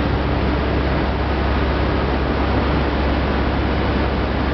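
Corn wet milling machinery running in a starch plant workshop: a steady mechanical din with a strong low hum that does not change.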